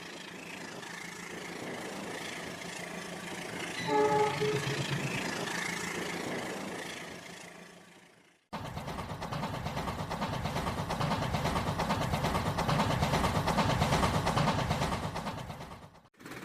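A train running, with a short horn blast about four seconds in. The sound cuts off abruptly after about eight seconds and starts again as a louder, rhythmic rolling noise.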